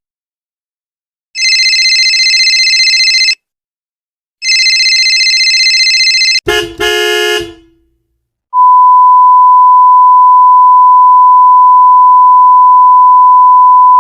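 Sound effects played back to back: two identical two-second electronic buzzing tones a second apart, a brief jumble of stepped tones, then a long, loud, steady 1 kHz censor bleep.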